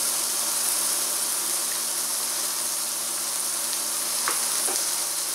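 Sliced onion and garlic sizzling in oil in a stainless steel pan, a steady frying hiss. A single knock about four seconds in, from the knife cutting through a tomato onto the wooden cutting board.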